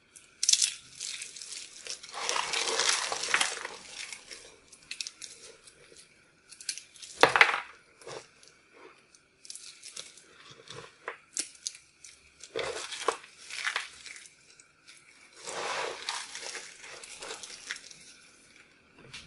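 Dry, brittle crumbled soap pieces dusted with starch, crunched and crackled as fingers crush and rake through the pile. It comes in irregular crinkly bursts with short pauses, with one sharp, louder crunch about seven seconds in.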